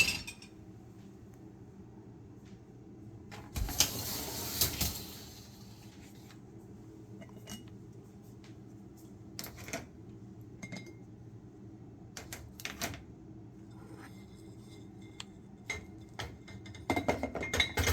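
Dishes, glasses and cutlery clinking and knocking as they are loaded into a dishwasher's racks: scattered single knocks over a faint steady hum, with a louder stretch of noise lasting about a second and a half around four seconds in and a quick run of clatter near the end.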